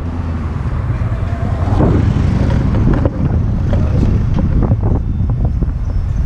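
Vehicle engine running low while driving, with wind buffeting the microphone in rough gusts and scattered thumps.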